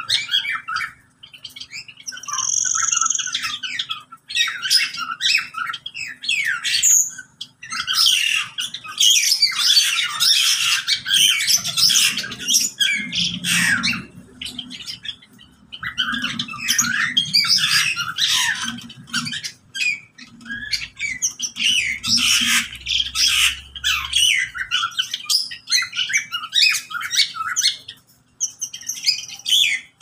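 A mixed aviary flock of parakeets, lovebirds and finches squawking and chirping, many birds at once, in shrill bursts broken by a few short lulls.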